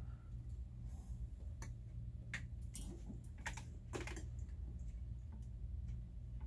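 A few light clicks and taps, about five of them in the middle of the stretch, over a steady low hum.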